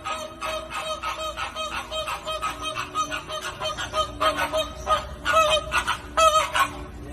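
A flock of flamingos honking: many short calls overlapping in quick succession, several a second.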